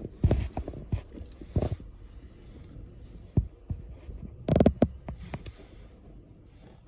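Footsteps in snow: irregular muffled thumps, with a louder cluster about four and a half seconds in.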